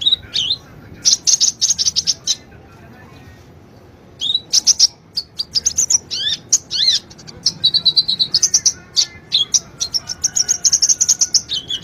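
Sunbird song: rapid bursts of high-pitched chirps, sweeping notes and buzzy trills, with a pause of a second or two early on. It is a lure recording meant to set caged sunbirds singing.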